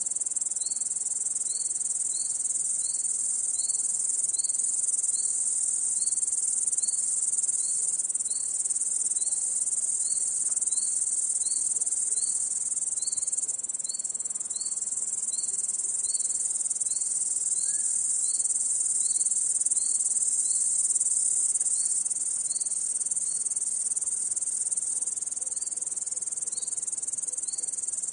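Crickets trilling in a dense, steady high-pitched chorus, with a second, lower chirp repeating evenly about one and a half times a second over it.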